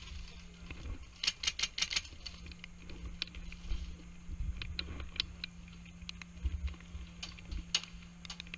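Scattered sharp clicks and light rattling, with a quick run of about half a dozen clicks a little over a second in, over a steady low hum and occasional low thumps.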